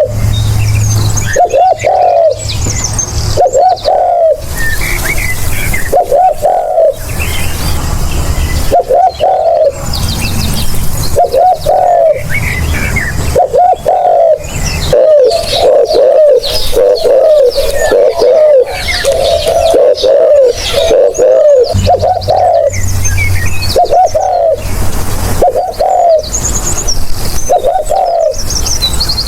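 Spotted dove cooing, its low coo phrases repeating every second or two and running closer together near the middle, with smaller birds chirping higher above it.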